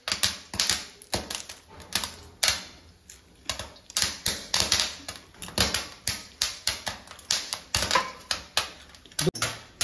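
Popcorn kernels popping in a covered aluminium kadhai on a gas stove: irregular sharp pops, a few a second, going off like firecrackers.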